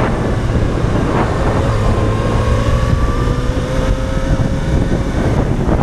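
Motorcycle under way, heard from a helmet-mounted camera: the engine's steady low drone under loud wind noise on the microphone, with a faint engine tone rising slowly through the middle.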